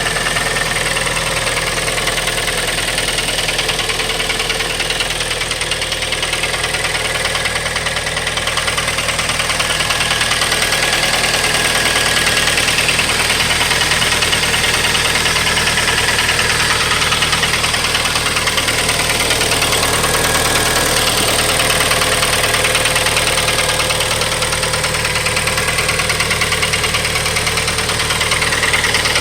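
2012 Kia Forte engine idling steadily with a fast, even ticking, a ticking whose cause the owner does not know.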